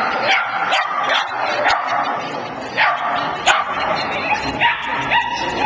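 A dog barking repeatedly: short, sharp, high barks, seven or eight of them at uneven intervals.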